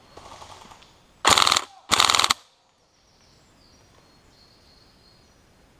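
Airsoft electric rifle, a Tokyo Marui HK416D, firing two short full-auto bursts close to the microphone about a second in, half a second apart: each a rapid rattle of the gun cycling shot after shot. A fainter rattle of gunfire comes just before them.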